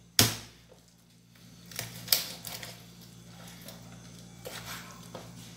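A kitchen knife chopping down through raw chicken onto a wooden cutting board. One sharp knock comes just after the start, then a run of slicing and scraping strokes with a few lighter taps.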